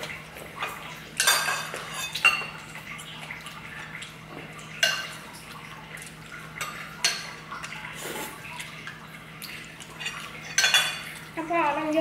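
Spoons and chopsticks clinking against bowls and dishes as people eat, a few separate sharp clinks with short ringing, one to two seconds apart, over a steady low hum.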